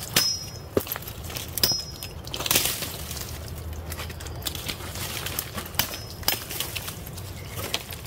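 Irregular light knocks and clicks with some rustling, over a low steady background, with a few short high-pitched squeaks.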